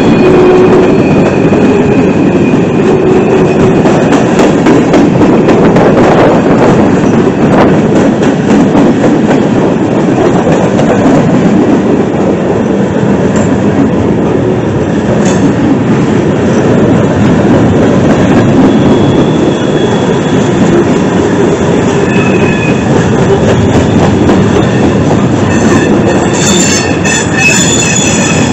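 A freight train's cars rolling past close by: a steady, loud rumble of steel wheels on rail with scattered clicks. Thin, high wheel squeals come in near the start and again near the end.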